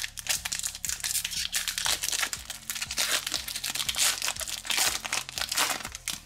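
Foil Pokémon trading-card booster pack wrapper crinkling and tearing as it is ripped open by hand. A dense run of crackles that eases off near the end.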